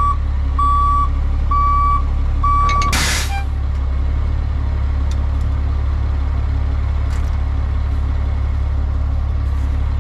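Truck's backup alarm beeping steadily about once every 0.7 s over a low diesel idle, stopping just under three seconds in; an air brake lets out a sharp, short hiss right after, as the truck stops. The engine keeps idling.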